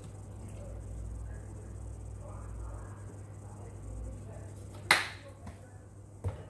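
A sharp knock about five seconds in, such as a bottle or utensil set down while pouring ketchup, and a smaller knock near the end, over a steady low hum.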